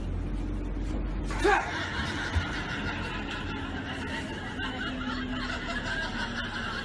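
People laughing on a moving bus over the steady hum of the bus engine. A short voice cry about a second and a half in is followed by chuckling and snickering.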